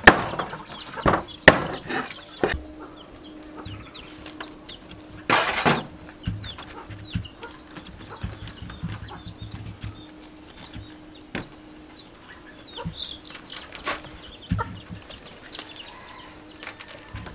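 Sounds of hands stuffing a raw whole chicken with lemongrass: a few sharp knocks and clicks in the first couple of seconds, one short loud rustling noise about five seconds in, then quiet handling with small scattered sounds.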